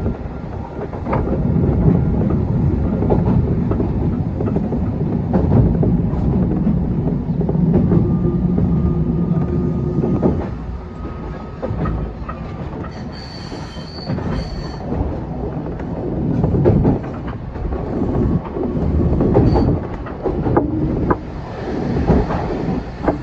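Heavy rolling vehicle noise: a loud low rumble with frequent knocks and clatter, a faint steady whine partway through, and a brief high-pitched squeal about halfway in as the rumble eases.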